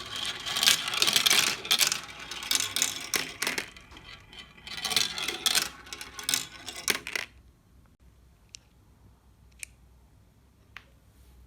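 Many glass marbles clattering and clicking against each other and a hard surface in a dense rattle that stops abruptly about seven seconds in, followed by a few single clicks.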